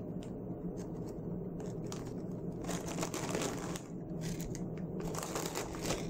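Clear plastic snack bags crinkling and rustling as dry, crisp shrimp crackers (krupuk) are handled and slipped back into them, with small clicks and rattles. There are two louder spells of crinkling, about halfway and near the end.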